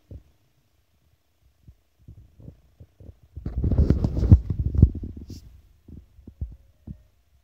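Handling noise on a phone's microphone: short low thumps and rumbling, with a louder, rougher stretch between about three and a half and five seconds in.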